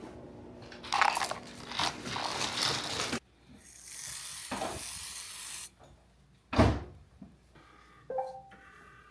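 Household handling noises: rustling and clatter for about two seconds, a steady hiss for about two seconds, then a single loud thump, with a short clink near the end.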